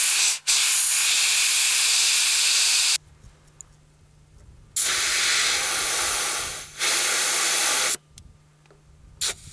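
Compressed air hissing out of a 4x4's tyre valve as the tyre is let down from 2.8 to about 2.2. The air is released in three bursts: one lasting about three seconds with a brief break half a second in, then two shorter ones near the middle and end, with quiet between.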